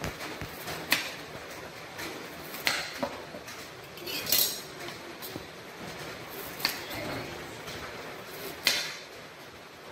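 Cleaver chopping a pumpkin into pieces on a cutting board: about half a dozen sharp knocks and clinks at irregular intervals.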